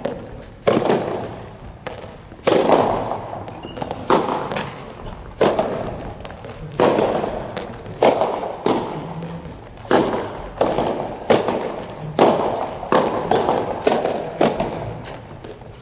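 Soft tennis rally: a rubber ball struck by rackets and bouncing on the court, sharp hits about once a second, each echoing in a large hall.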